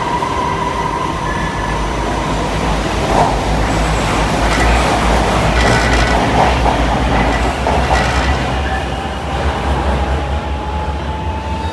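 Siemens Inspiro metro train pulling out along the platform: a whine from the electric drive that shifts in pitch, over a deep rumble of the wheels that swells in the middle as the cars pass, with clicks over the rail joints. The sound eases off near the end as the train clears the station.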